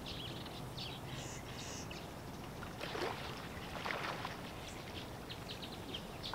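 Two faint splashes of water about a second apart as a hooked carp is scooped into a landing net, over a light outdoor hiss with small birds chirping.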